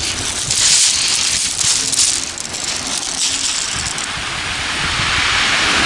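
Sea waves breaking and washing up a shingle beach: a loud hissing rush of surf over pebbles that eases off and then swells again towards the end.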